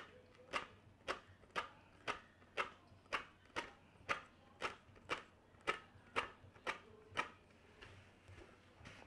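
Metal tweezers plucking hairs from a wig's lace frontal, a sharp click with each pluck at a steady pace of about two a second, stopping about seven seconds in.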